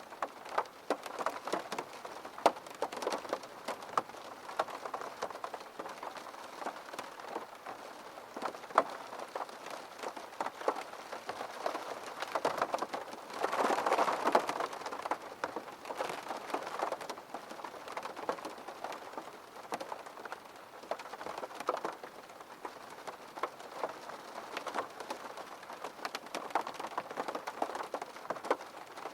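Steady rain with many separate drops hitting sharply, swelling briefly about halfway through.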